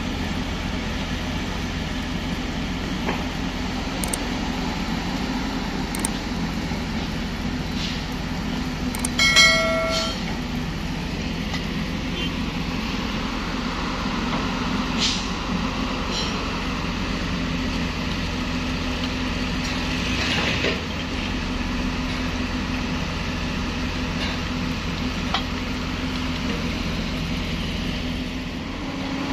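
Heavy diesel construction machinery engines running steadily with a low, even drone. About nine seconds in there is a short horn-like tone lasting about a second, and a few faint knocks.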